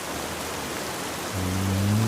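Steady rain, with a man's low, drawn-out snore starting about two-thirds of the way through.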